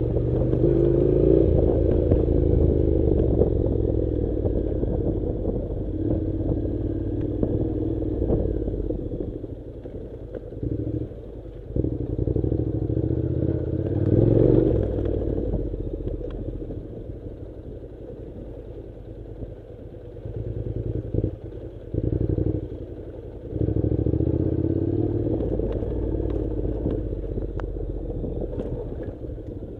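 Honda NC700's parallel-twin engine running at low revs as the motorcycle rides over a rocky logging track, with stones and the bike clattering. The engine sound dips several times and swells briefly about halfway.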